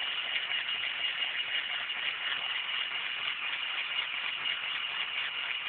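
Small K'nex electric motor and its gear train driving a toy roller coaster chain lift, running steadily with a high whine while a coaster car is carried up the lift.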